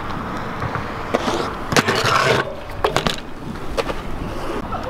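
BMX bike tyres rolling over skatepark concrete, with a rushing scrape and a cluster of sharp clacks about two seconds in and a few single clacks after.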